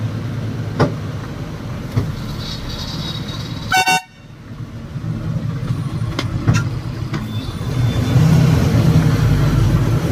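Truck driving on a rough, potholed road: steady engine and road rumble with a few sharp knocks as it jolts. A vehicle horn toots briefly a little under four seconds in, and the engine noise grows louder over the last couple of seconds.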